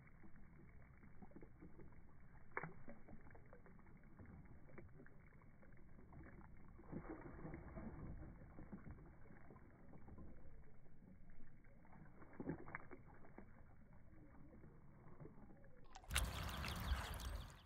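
Faint water lapping and sloshing in a plastic wading pool, with a steady outdoor hiss and a couple of faint knocks. Near the end a much louder, fuller noise cuts in for under two seconds, then stops suddenly.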